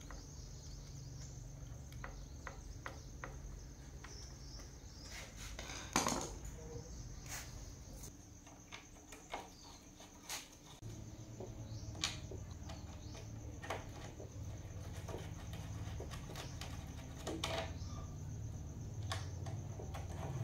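Scattered light clicks and taps of small tools and parts being handled on a workbench, over a steady low hum that drops out for a few seconds in the middle.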